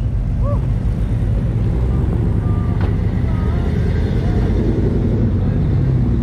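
Steady low rumble of hot rod and street rod engines as the cars drive out, with faint voices in the background.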